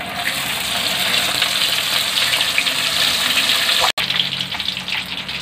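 Masala-coated crab pieces sizzling and crackling in hot oil in a kadai, with a brief break just before four seconds in.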